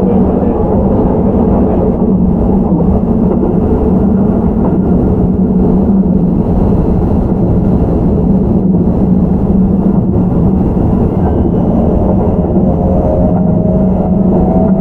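Running sound inside a Keihan 13000-series electric train with Toyo IGBT-VVVF traction: a steady, loud rumble of wheels on rail and running gear. A faint rising whine comes in near the end.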